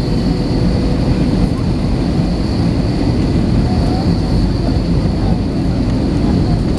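Steady cabin noise of an Airbus A321 in flight: the roar of its CFM56 engines and the rush of air, heard from inside the cabin, with a constant high hiss over a deep rumble.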